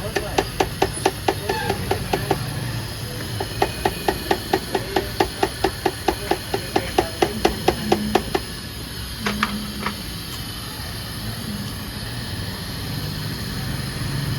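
Rapid, even, light tapping on metal, about five taps a second, for two seconds, then again for about five seconds after a short pause, followed by two separate clicks.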